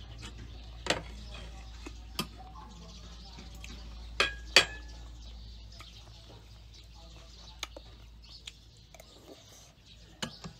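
Metal fork and spoon clinking against ceramic plates and a bowl while eating: about seven sharp clinks spread apart. The loudest two come close together near the middle, the second ringing briefly.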